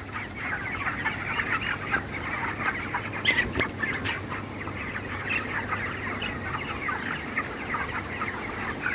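A flock of 28-day-old broiler chickens calling together: a dense, steady chorus of short peeps and clucks, with a few sharp clicks a little over three seconds in.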